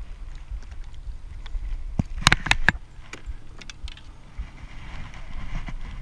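A quick run of about five sharp clicks and knocks about two seconds in, from metal fishing pliers and a fish grip handled against the plastic kayak, over a low rumble.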